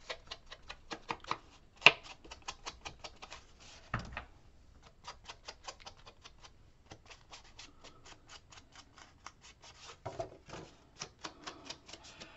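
Ink blending tool dabbed rapidly against paper edges, inking the white cut edges to hide them: quick light taps at about five or six a second, in runs broken by short pauses, with a few louder knocks.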